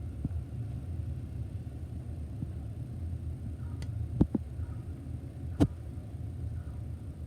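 A sleeping cat's claws clicking three times against the rim of its cat house as it twitches, a startle reaction to a crow's caw. The crow is heard faintly just before the first click, over a steady low room hum.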